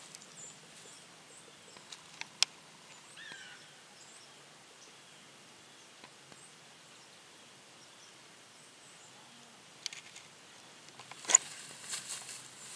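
Quiet outdoor autumn ambience with a short bird chirp about three seconds in. A few sharp clicks come through, the loudest near the end, followed by rustling in dry grass and leaves.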